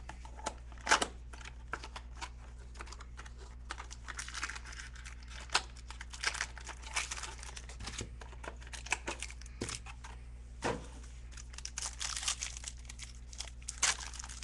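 Trading card box and its foil-wrapped packs being torn open and handled: irregular crinkling and tearing of wrapper plastic and foil, with a few sharper crackles, over a steady low hum.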